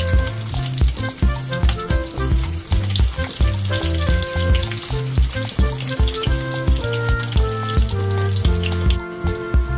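Slices of Spam frying in hot oil in a pan, a steady sizzle with fine crackling, under background music with a steady beat.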